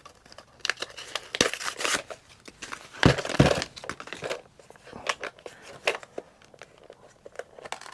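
Packaging being handled and unwrapped: irregular crinkling and rustling with scattered sharp clicks, the loudest rustle about three seconds in.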